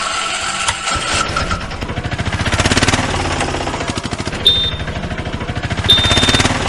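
Engine running with a fast, even chugging rhythm, with two short high beeps in the second half.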